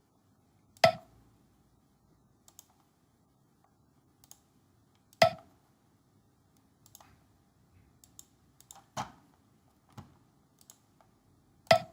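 Computer mouse clicking: four sharp, loud clicks a few seconds apart, with fainter clicks and ticks between them.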